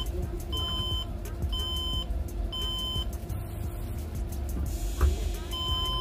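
HP Compaq 8100 Elite motherboard's system speaker beeping out its five-beep error code, half-second beeps about one a second. Three beeps end one run, and after a pause of about two and a half seconds the next run begins near the end. Five beeps with the red power light is HP's code for a memory error, sounding here after RAM was installed. There is a short knock about five seconds in, over a steady low hum.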